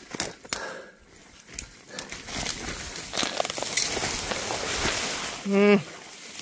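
Brush and branches rustling and snapping as someone scrambles down a very steep, overgrown hillside, with sharp twig cracks in the first couple of seconds and a longer stretch of rustling after. A short grunt near the end.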